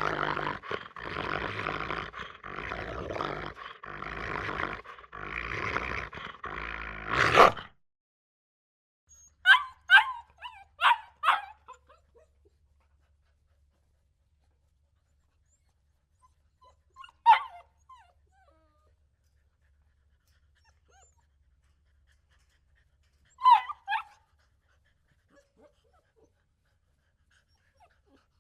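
Domestic dog growling continuously for about seven seconds, cut off by a sharp outburst. After a pause come short high-pitched whimpering yelps: four in quick succession, then two single ones several seconds apart.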